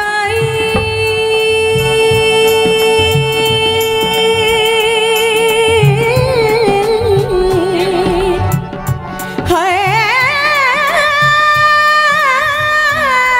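A woman singing a Punjabi song live into a microphone. She holds one long note for about four seconds, then sings quick, wavering ornamented turns, and rises into a second long held note about ten seconds in, over a low, pulsing rhythmic backing.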